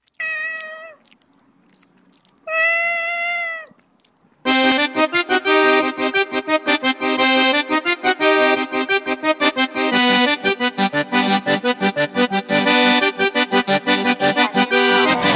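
A cat meows twice, first briefly and then a longer call. About four and a half seconds in, lively background music with a fast pulsing beat starts and runs on.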